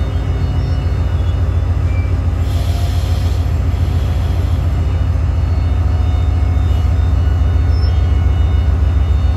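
Railway locomotive engine running with a steady, fast low throb that grows slightly louder, and a brief hiss of air about two and a half seconds in.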